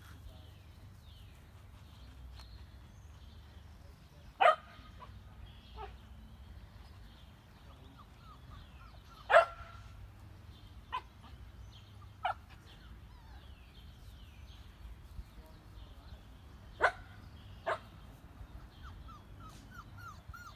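Sheltie puppies yipping: six short, sharp barks spaced out, the loudest about four and nine seconds in.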